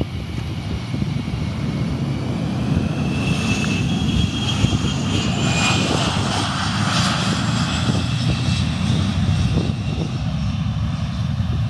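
Boeing KC-135 Stratotanker's four jet engines at takeoff power as it rolls down the runway past the listener: a steady low rumble, with a high whine that comes up about three seconds in, is strongest near the middle as the aircraft passes, and drops in pitch as it fades.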